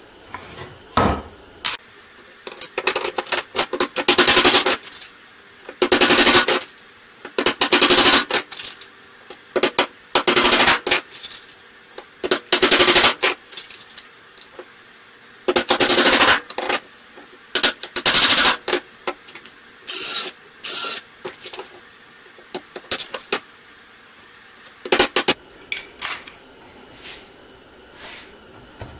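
Rapid bursts of tool clatter as pallet-wood slats are fastened to a wooden frame: about a dozen bursts of half a second to two seconds each, every one made of quick repeated clicks.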